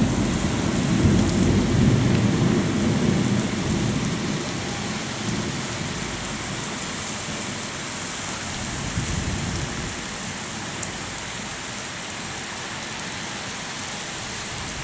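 Heavy cyclone rain pouring steadily, with a low rumble in the first few seconds that fades away.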